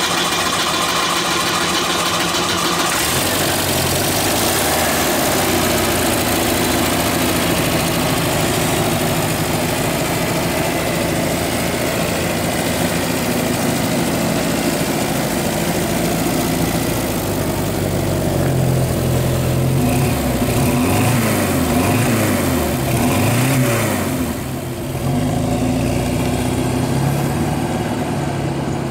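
1973 Volvo 1800ES's four-cylinder engine running just after start-up, idling steadily. About two-thirds of the way through, the revs rise and fall several times as the car drives away.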